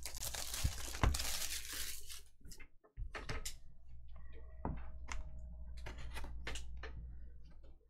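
Cellophane shrink-wrap crinkling and tearing as it is pulled off a cardboard trading-card box, for about two seconds. Then scattered light clicks, taps and scrapes as the box is handled and its end flap is worked open.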